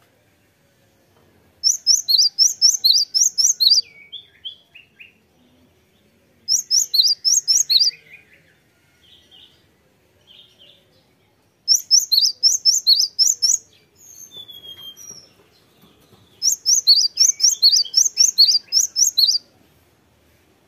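Cinereous tit singing: four bursts of rapid, high repeated notes, each lasting two or three seconds, with a few softer, lower notes after some bursts.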